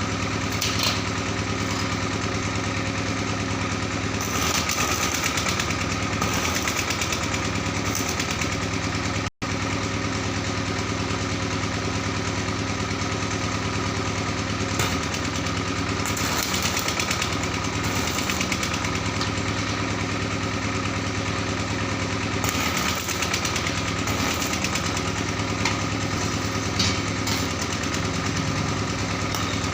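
A machine running steadily with a constant-pitched drone, with brief brighter hissing passages now and then; the sound cuts out for an instant about a third of the way in.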